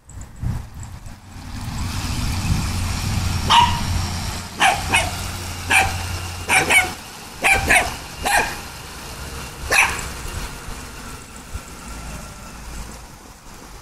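A dog barking, about ten sharp barks in uneven runs, over a low rumble that fades away partway through.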